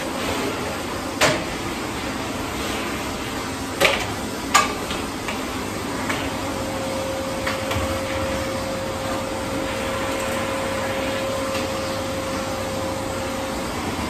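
Canister vacuum cleaner running steadily as its floor nozzle is pushed over carpet. A few sharp knocks come in the first five seconds, and a faint steady whine joins in the second half.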